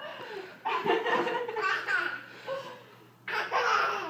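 Laughter in a run of bursts that stops briefly near the end and then starts again.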